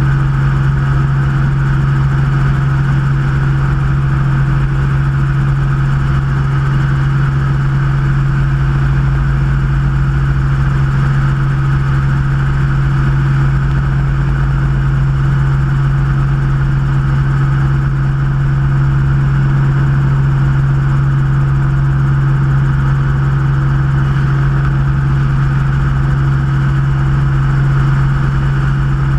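Helicopter engine and rotor heard from on board in steady cruise flight: a constant drone with a strong low hum that does not change.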